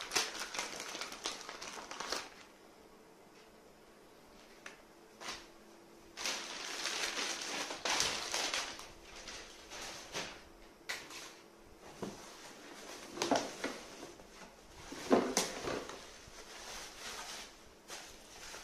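Plastic packaging and bubble wrap crinkling and rustling as it is handled and pulled from a cardboard box, in uneven bursts with a quieter pause about two seconds in and the loudest rustles near the end.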